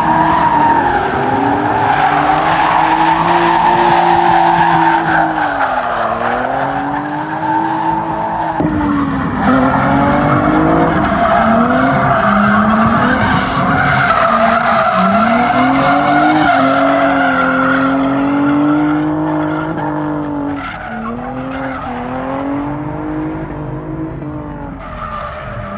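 Drift car's engine revving up and down over and over, with tires squealing on the track.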